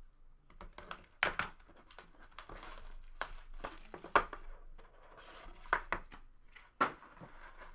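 Trading card box packaging being torn open and crinkled by hand, an irregular rustle with several sharp crackles.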